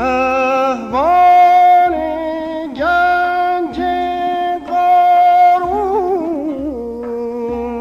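Persian classical singing (avaz) in dastgah Shur by a male voice, held notes with vibrato linked by pitch slides, and a quick wavering melismatic run about six seconds in.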